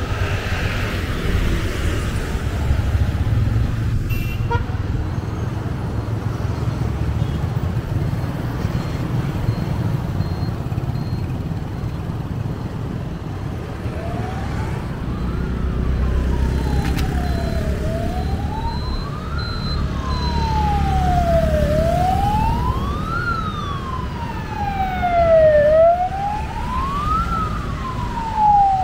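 Steady rumble of street traffic. About halfway through, an emergency vehicle's wailing siren starts, rising and falling slowly with one full rise and fall about every four seconds, and it grows louder toward the end.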